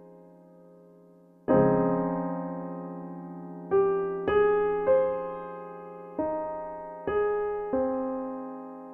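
Slow, soft piano music: a quiet held chord fades, a chord is struck about a second and a half in and left to ring, then single notes and chords follow every second or so, each fading away.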